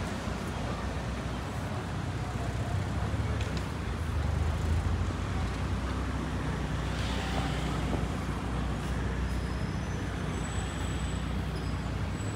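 Road traffic on a city street: cars driving past in a steady low rumble, swelling a little louder around four to five seconds in.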